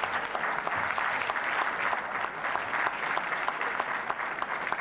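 Audience applauding: many hands clapping at once, the applause slowly fading toward the end.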